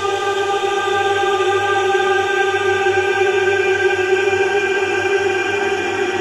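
Slow ambient music: one chord of many tones held steady, swelling a little and easing near the end.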